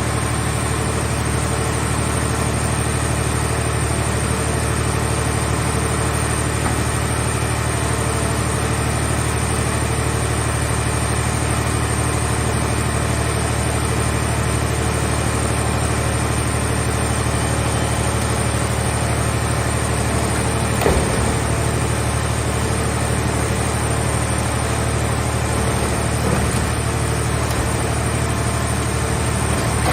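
Mobile hydraulic scrap car baler running steadily with a low machine hum. A sharp clank comes about two-thirds of the way through, and a fainter one follows a few seconds later.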